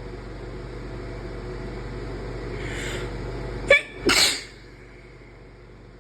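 A person's induced sneeze: a faint breath in about three seconds in, then a sharp catch and one loud sneeze just after four seconds.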